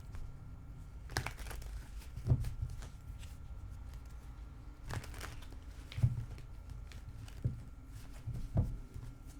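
Handling noises from a tarot reading: about six soft knocks and rustles spread out over a steady low room hum, as cards are moved about on the table.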